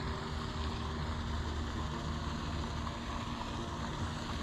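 Fish-stocking truck's engine idling, a steady low hum.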